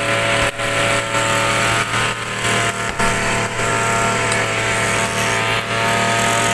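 A few irregular thuds of fists hitting a hanging heavy punching bag, over the steady drone of a small engine running throughout.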